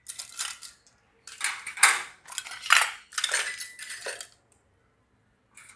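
Miniature stainless-steel ladles clinking and rattling against the metal utensil holder of a steel stand as they are slotted in one after another. There are several short bursts of clatter over about four seconds, then it goes quiet.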